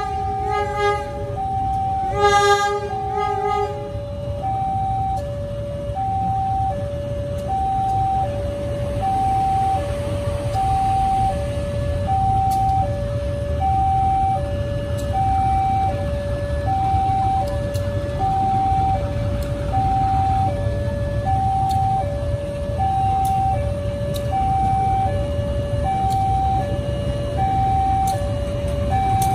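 Level-crossing warning alarm sounding a steady two-tone hi-lo pattern, each tone lasting about three-quarters of a second, as a diesel locomotive approaches. The locomotive's horn blasts twice near the start, over a steady low rumble of the diesel engine.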